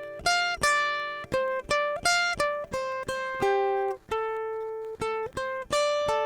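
A plucked string instrument playing a slow melody of single notes, about two to three a second, each note starting sharply and ringing as it fades, with a brief gap about four seconds in.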